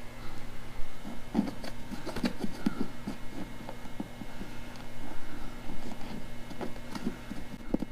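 Irregular small clicks, taps and knocks of hands working bolts through the holes of a fiberglass saddlebag, over a steady low hum.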